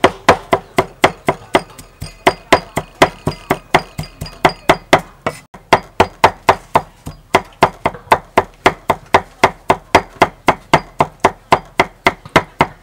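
Kitchen knife mincing garlic on a thick round wooden chopping block: a steady run of sharp chops, about four a second.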